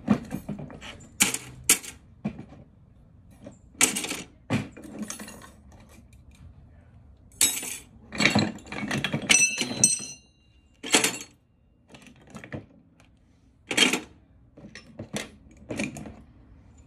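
Metal hand tools being rummaged, picked up and set down: scattered clinks and knocks, one of them ringing briefly about ten seconds in.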